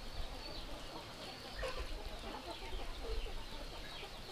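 Chickens clucking in short, scattered calls, with a few faint bird chirps.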